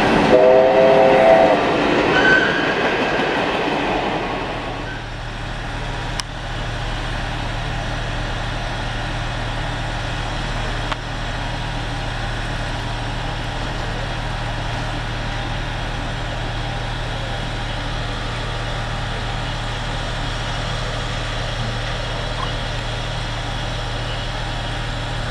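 Steam-hauled train passing on the track, with a short chord whistle blast about half a second in. After about five seconds there is only a steady low hum from the two steam locomotives, SNCF 241.A.65 and 241.P.17, standing while they take on water.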